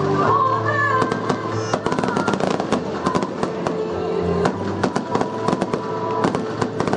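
Fireworks bursting and crackling in rapid, dense succession over music with long held notes.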